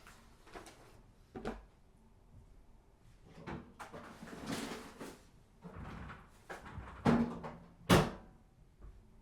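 Household handling sounds: scattered light knocks and a soft rustle, then two loud, sharp knocks about seven and eight seconds in, like a cupboard or door being shut.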